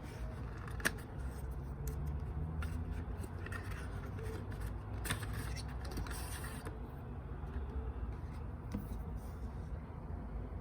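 Steady low rumble of city traffic, with a few sharp clicks and a brief scraping rustle a little past the middle.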